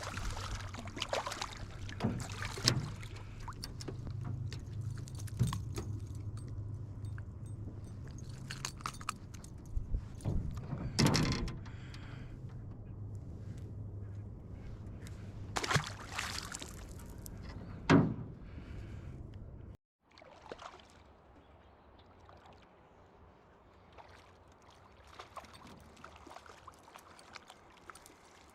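Small fishing boat on the water: a steady low motor hum with scattered knocks and clicks of gear against the hull. About twenty seconds in it cuts to quieter, softer noise with faint ticks.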